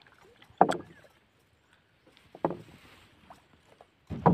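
Three knocks against the wooden hull of a dugout canoe, about two seconds apart, the first the loudest.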